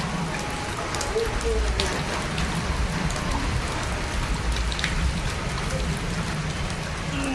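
Steady rain falling on a wet paved street, an even hiss with scattered sharper drop hits close by.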